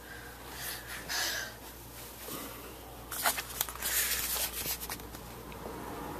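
Rustling of clothing and bumps from a handheld camera being jostled, with a dense run of clicks and scrapes about three to four and a half seconds in.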